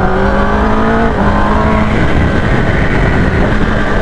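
Kawasaki ZX-10R inline-four sportbike engine pulling hard under acceleration, its pitch rising. About a second in the pitch drops sharply on an upshift, then climbs again. Heavy wind rush on the microphone runs underneath.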